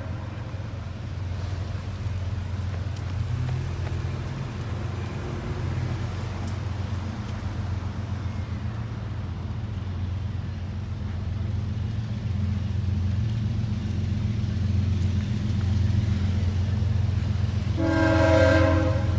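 GE diesel freight locomotives running with a steady low engine rumble that builds slightly as the train pulls out. Near the end comes one short blast of the locomotive's multi-note air horn.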